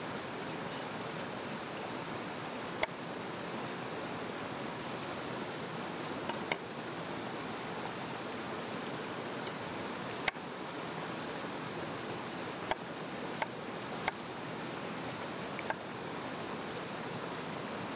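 Steady rushing of a rocky mountain stream, with about seven sharp, irregularly spaced knocks of a chef's knife on a wooden cutting board as a green bell pepper is cored and sliced.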